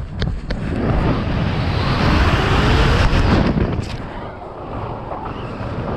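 Wind rushing over the camera microphone in a BASE jump freefall, building for about two seconds and dying down again about four seconds in, after a few sharp knocks as the jumper steps off the rock.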